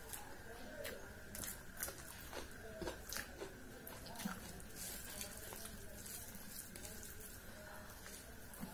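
Rice and curry being squeezed and mixed by hand on a steel plate: irregular wet squelches and sticky clicks, a few of them sharper, spread throughout.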